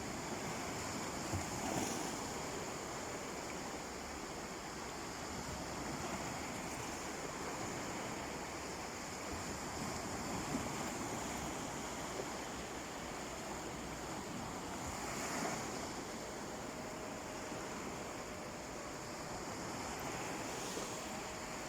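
Sea waves washing onto a beach: a steady rush of surf that swells a few times as waves break.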